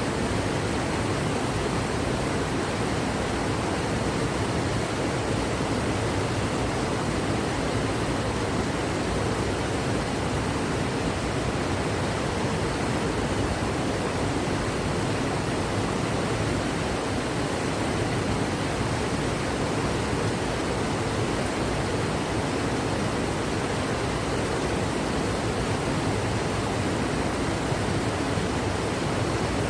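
Steady rushing water, an even hiss with no breaks or changes.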